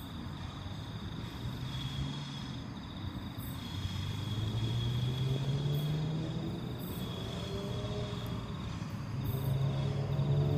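A Sydney Trains Waratah electric train approaching the platform, its low motor hum and whine growing louder as it nears, the whine climbing in pitch over the last few seconds. Crickets chirp steadily throughout.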